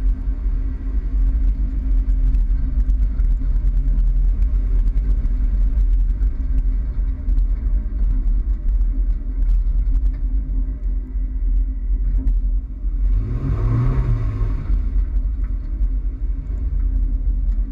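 Toyota Tacoma driving, a steady low rumble of engine and road noise. About thirteen seconds in, a louder swell lasts a second or two, with a low tone that rises and then falls.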